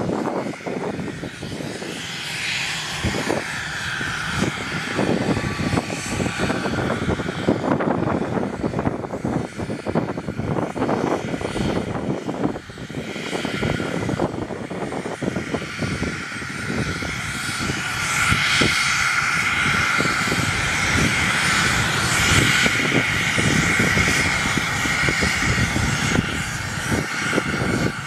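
Twin Pratt & Whitney Canada PW530A turbofans of a Cessna Citation Bravo whining at taxi power over a low rushing rumble. The whine grows louder about two-thirds of the way through.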